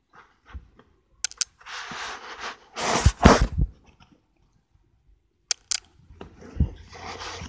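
Merle puppy snuffling and rubbing against the phone's microphone: bursts of close, breathy rustling, loudest about three seconds in, a short pause, a few sharp clicks, then more rustling.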